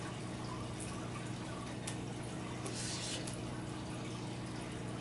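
Steady room tone: a low electrical hum and even hiss, with a few faint, light clicks scattered through it.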